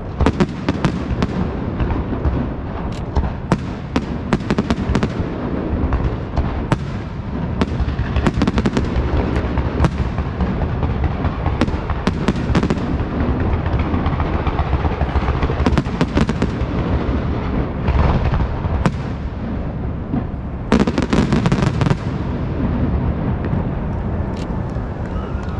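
Castillo aerial fireworks display: a continuous barrage of shell bursts, a steady low rumble of booms overlaid with many sharp cracks. The cracks come thickest about 16 and 21 seconds in.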